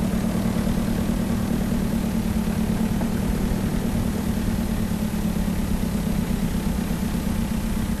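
County 1124 tractor's diesel engine running steadily under load while pulling a five-furrow semi-mounted Lemken plough: an even, constant low drone.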